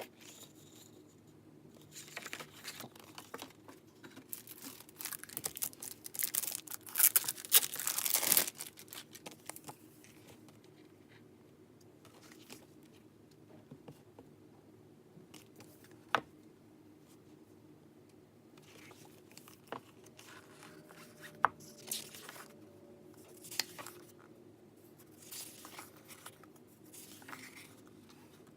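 Merchandise packaging being torn open and crinkled by hand, a run of dense tearing and rustling that is loudest about a quarter of the way in, followed by scattered softer rustles and a few sharp clicks.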